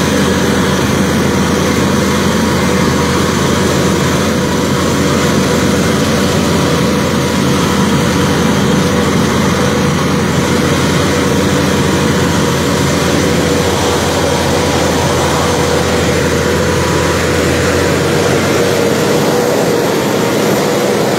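Heavy engine running steadily: a deep rumble with a constant hum on top. The lowest part of the rumble drops away about 18 seconds in.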